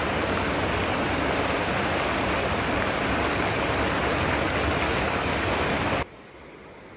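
Loud steady rush of a mountain stream cascading over granite boulders. It cuts off abruptly about six seconds in, leaving a much quieter steady hiss.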